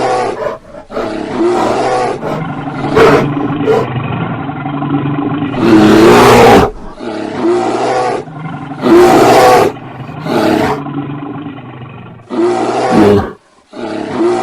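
Angry bear roaring and growling in repeated bouts, the loudest roars about six and nine seconds in.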